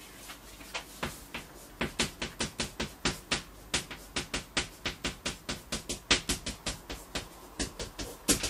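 Chalk tapping and scratching on a blackboard as characters are written by hand: a run of short, sharp taps about four a second, starting about a second in.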